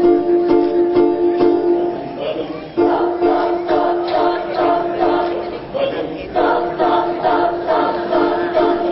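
A youth choir singing steady chords over a strummed, guitar-like accompaniment, in phrases broken by short pauses about two and six seconds in.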